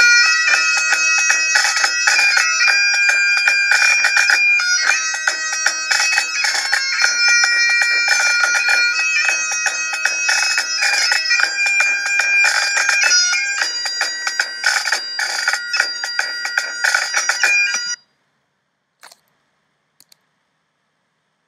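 Great Highland bagpipe playing a fast tune over its steady drone. The playing stops abruptly about 18 seconds in, followed by two faint clicks.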